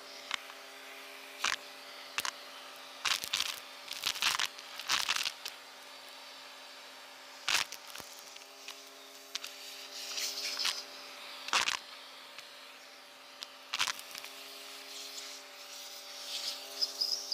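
Small plastic beads, buttons and metal can ring pulls clicking and clattering as they are dropped and handled on a woven rug: a string of sharp clicks and short rattles, over a faint steady hum.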